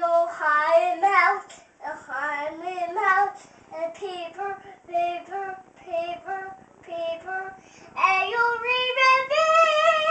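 A young boy singing in a mock-opera style with a wavering voice: a run of short held notes, then climbing in pitch to a long, loud high note near the end.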